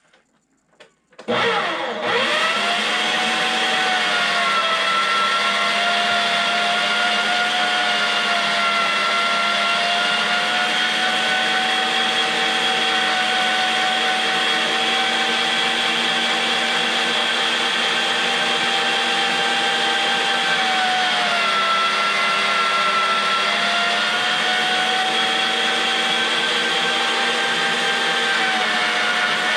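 STX Turboforce electric meat grinder switching on about a second in and running steadily while grinding meat, a loud motor whine whose pitch dips briefly twice.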